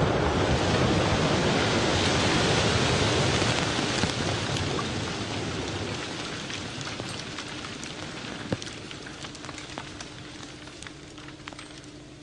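Rumble of a big bomb explosion dying away slowly. From about four seconds in, scattered clicks and patters of debris fall back to the ground, with one sharper snap a little past the middle.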